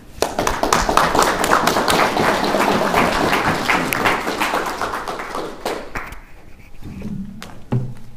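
Audience applauding, many hands clapping at once, dying away about six seconds in. A single thump follows near the end.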